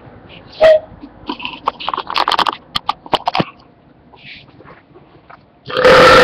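A man's long, loud belch near the end, with a short loud gulp-like sound about a second in and a string of clicks and short mouth or handling noises in between.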